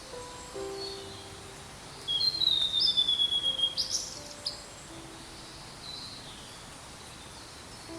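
Blue-and-white flycatcher singing one phrase about two seconds in: a clear whistled note sliding down in pitch, then quick rising notes and a sharp, clicky ending.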